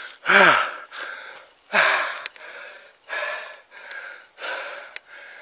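A man panting hard, out of breath from climbing uphill: quick, heavy breaths in and out about one and a half a second. Near the start and again just under two seconds in, a breath comes out as a loud voiced gasp falling in pitch.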